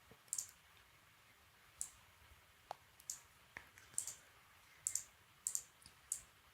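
Irregular, faint clicking of a computer mouse and keyboard: about a dozen sharp, light clicks, some in quick pairs.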